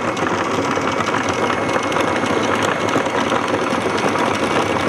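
Electric anchor windlass running to pay out the anchor chain, with a fast, even rattle of chain links through the gypsy and a faint steady motor whine.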